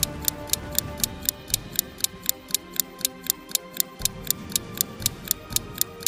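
Clock-ticking sound effect, about four even ticks a second, over quiet background music with held tones.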